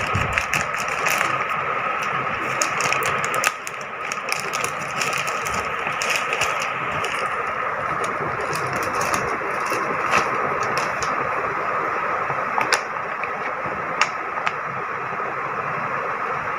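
Scissors snipping and a plastic courier mailer crinkling as it is cut open and a seed packet is drawn out, with crackles thick in the first half and only a few later, over a steady mechanical hum.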